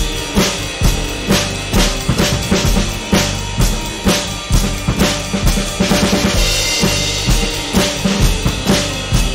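A drum kit played in a steady groove, led by a handmade solid-wood stave snare drum with wooden hoops struck on the head, with bass drum under it. A cymbal rings out about six seconds in.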